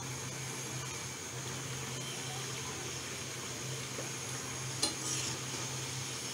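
Pabda fish and eggplant curry bubbling and sizzling steadily in an oily gravy in a pan, cooked down nearly done. Near the end a metal spatula knocks against the pan as stirring begins.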